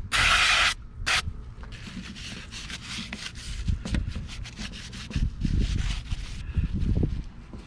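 Aerosol brake cleaner hissing in short sprays onto a trolling motor's end cap, one ending in the first second and another brief one about a second in. Then a rag rubbing and wiping the end cap out, with gloved hands handling the part.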